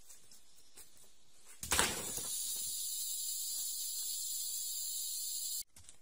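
A thump, then a steady high-pitched insect chorus that starts suddenly and cuts off near the end.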